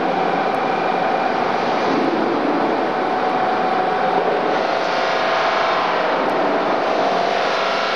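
Autopulit automatic polishing machine running, its motor-driven wheels working on metal parts: a steady whirring noise with a hum that drops slightly in pitch about halfway through.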